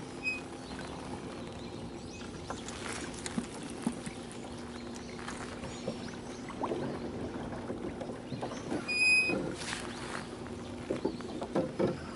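Bow-mounted electric trolling motor humming steadily. It cuts out about a second in, runs again from about halfway through and stops near the end. Light knocks and taps sound against the boat, with a brief high note and a louder knock about nine seconds in.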